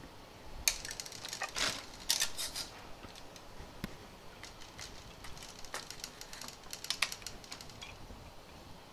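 Clicks and rattles of a bottle being fitted upside down onto a drink dispenser tap, hard parts knocking and snapping together in two bursts, about a second in and again around six to seven seconds.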